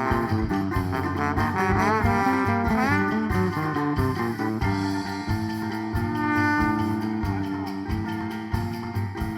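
Instrumental passage of a live band: a melodic lead line with slides and ornaments over a moving bass line and a steady beat, with no singing.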